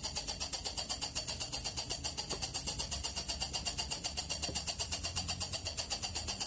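Walang kecek bush cricket (katydid) stridulating: a high-pitched, rapid pulsing chirp of about ten even pulses a second, going on without a break.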